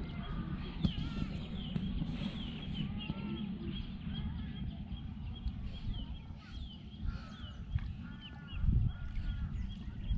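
Birds chirping and calling: a steady run of short, high chirps, with lower arched calls now and then, over a low rumble.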